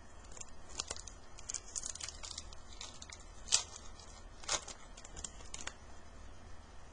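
Hockey trading cards being handled and flicked through, with light crinkling and a run of small clicks and snaps, two of them louder about halfway through.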